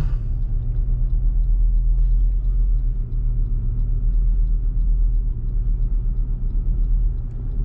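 Tow vehicle's engine running steadily at low speed as it pulls a trailer around a corner, a low, even rumble with a faint fast ticking above it.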